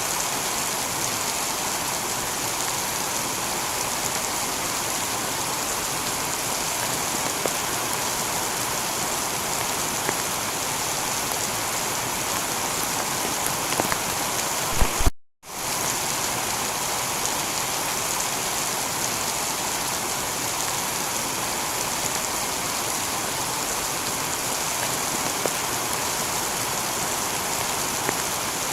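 Steady heavy rain pattering on a tiled roof, with scattered sharp drop ticks. A couple of louder pops come about fifteen seconds in, then the sound cuts out completely for a split second before the rain resumes.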